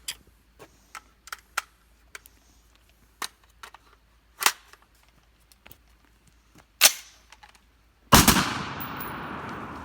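Light clicks of a rifle being handled, then two rifle shots about two and a half seconds apart. About eight seconds in comes a much heavier blast whose rumble dies away slowly.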